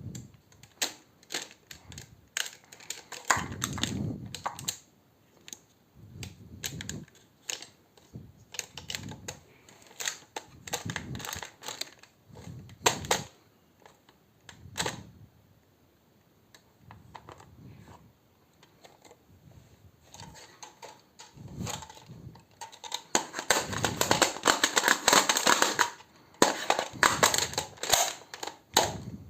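An airsoft magazine being reloaded by hand: irregular plastic clicks and short rattles, with a dense run of rapid clicking near the end.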